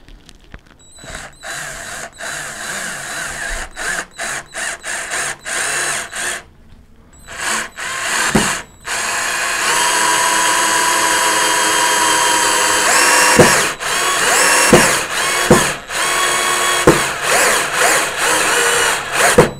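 Xenon CDD 505 cordless drill driver driving a long screw into hard wood without a pilot hole. The motor runs in many short bursts at first, then in one long steady run of about four and a half seconds, then in short bursts again as the screw goes home.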